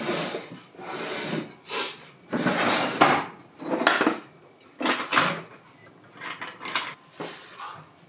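Dishes and cutlery being handled on a wooden dining table: an irregular string of short clattering, scraping bursts.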